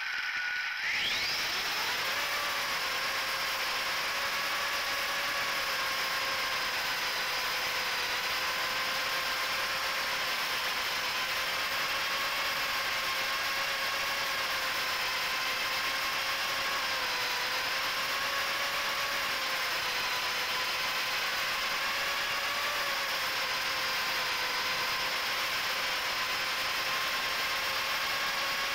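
A 3-inch micro quadcopter's HGLRC 1104 7500kv brushless motors with Gemfan 3018 two-blade props whine steadily over a hiss. The pitch climbs as the motors spool up for takeoff about a second in, then holds with small wavers as the throttle changes in flight.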